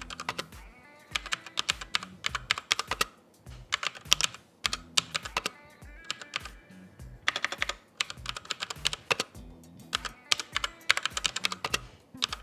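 Typing on a DA Meca Fighter S Cosmic mechanical keyboard with Otemu brown tactile switches: bursts of rapid key clacks separated by short pauses. Background music with a bass line runs underneath.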